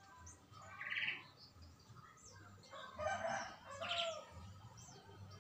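Birds calling: a short buzzy chirp about a second in, then a rooster crowing at about three to four seconds.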